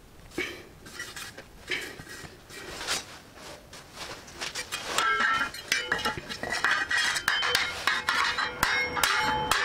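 Light handling knocks, then from about halfway a quick, dense run of metallic taps and clinks that ring: a hammer tapping a metal plate against a steel-tube stand frame.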